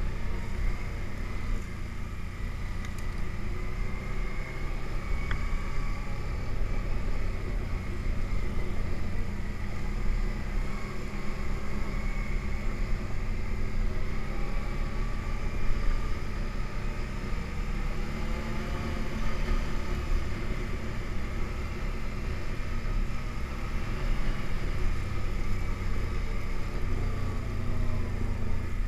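ATV engine running steadily under way, its pitch wavering slightly as the throttle changes.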